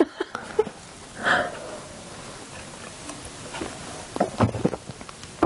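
Quiet sounds of drinking from wine glasses after a toast: a short breathy sip or exhale about a second in, then a few light knocks as a glass is set down on the table near the end.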